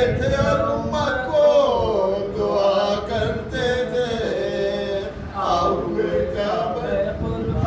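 A man chanting a marsiya, an Urdu mourning elegy, unaccompanied, in a slow melodic line of held notes that waver and bend in pitch.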